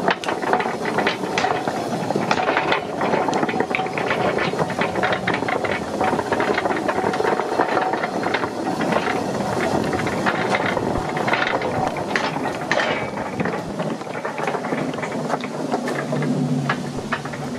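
Rusty narrow-gauge railway wagon chassis rolling along the old track when pushed by hand: its iron wheels rattle and clank on the rails with many sharp clicks, getting quieter near the end.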